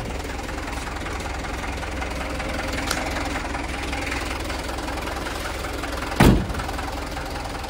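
Mitsubishi Fuso Canter truck's turbo-intercooled diesel engine idling steadily, with a light click about three seconds in. A little after six seconds the cab door slams shut, the loudest sound.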